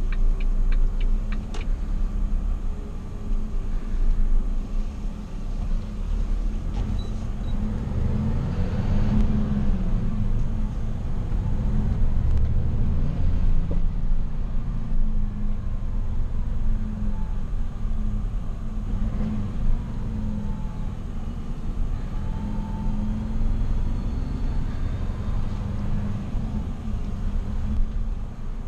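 Volvo FL city truck's diesel engine running under way, heard from inside the cab as a steady low rumble that builds for a moment about eight seconds in.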